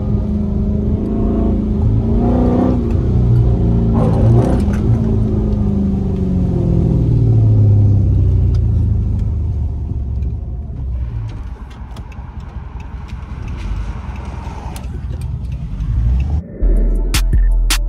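Dodge Charger's swapped-in 392 HEMI V8 accelerating with its pitch climbing in pulls, then easing off in a long falling drone and settling to a lower, quieter run. Music with a drum beat cuts in near the end.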